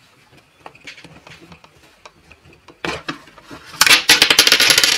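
Plastic Kindi Kids toy fridge being opened by hand, its doors and small plastic toy groceries knocking and clattering: light clicks at first, a loud knock about three seconds in, then a dense rattling clatter near the end.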